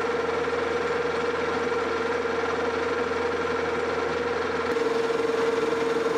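Metal lathe running, turning a steel pin's shank down to 1 inch diameter, with a steady whine from the machine's drive. A lower hum drops away about three-quarters of the way through.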